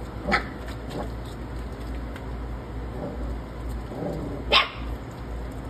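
Four-week-old American bully puppy giving two short, high barks, one just after the start and a louder one near the end, over a low steady hum.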